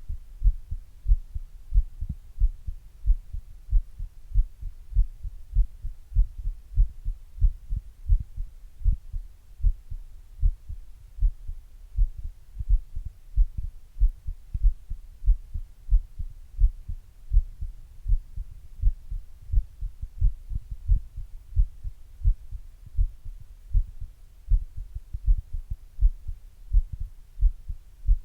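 Human heartbeat picked up by an earbud microphone pressed to the chest through a glass: a steady, even rhythm of dull low thumps.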